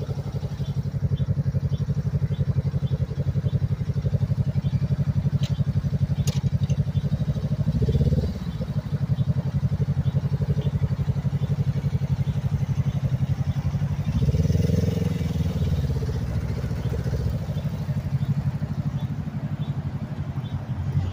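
Suzuki GSX-R's inline-four through a Leo Vince GP Corsa full exhaust, idling with an even low pulse. It blips briefly about eight seconds in, then the revs rise and fall around fourteen seconds as the bike pulls away.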